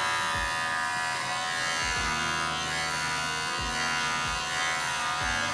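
Electric dog grooming clippers buzzing steadily as they shear through a poodle's curly coat, cutting it short. A few dull low bumps come and go under the hum.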